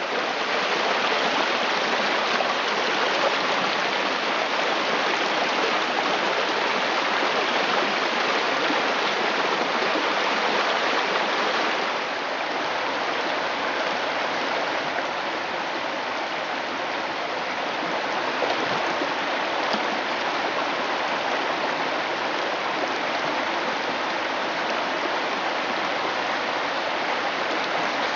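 Shallow river water flowing over a gravel bed: a steady, even rush with no break, a little quieter from about twelve seconds in.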